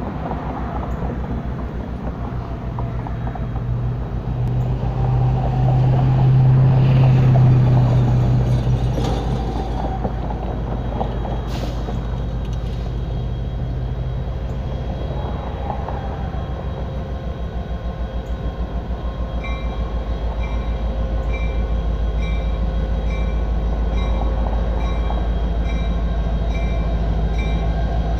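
Norfolk Southern diesel-electric locomotive running as it approaches slowly, with a steady low throbbing engine note that is loudest about seven seconds in. About two-thirds of the way in, a bell starts ringing about once a second.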